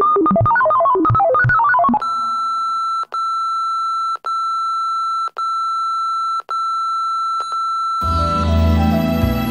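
Quick electronic keyboard notes for about two seconds, then a steady high beep tone of a film-leader countdown, broken by a short gap about once a second. About eight seconds in, music starts with a deep low swell and a high tone gliding down.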